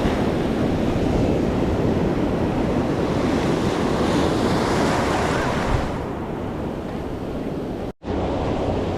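Pacific Ocean surf washing up the beach, with wind buffeting the microphone. The wash swells in the middle and eases off, and the sound cuts out for an instant near the end.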